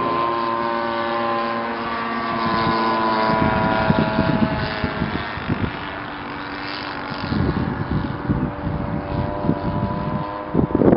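Zenoah Z62 single-cylinder two-stroke petrol engine, turning its propeller through a reduction unit, running steadily as a one-third-scale model biplane flies overhead; its pitch drifts slightly as the plane passes. From about three and a half seconds in, gusts of wind rumble on the microphone.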